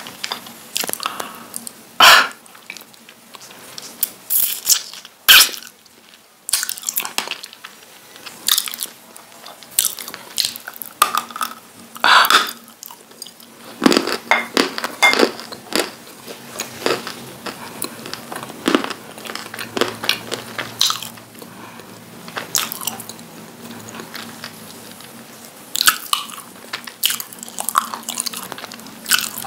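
Close-up biting and crunching of dry lumps of edible clay (calabash chalk), with chewing between the bites. Sharp, crisp cracks come at irregular intervals, the loudest about two, five and twelve seconds in.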